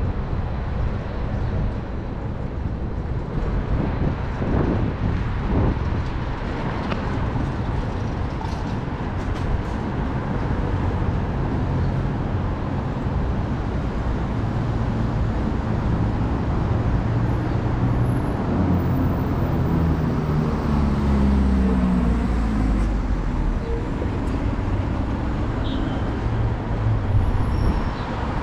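City street traffic: motor vehicles running close by at a steady level. Around two-thirds of the way through, one heavy engine's note slides down in pitch over a deeper rumble.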